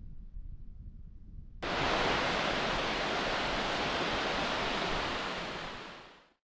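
Steady rush of fast-falling water: a low rumble, then a dense, even rushing that cuts in abruptly about a second and a half in and fades out near the end.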